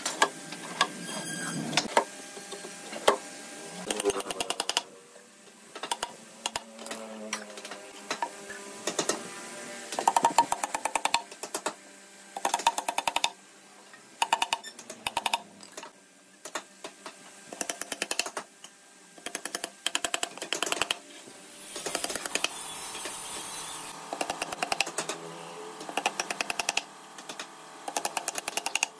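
Hammer driving nails into a wooden drawer cabinet, in quick runs of light blows separated by short pauses.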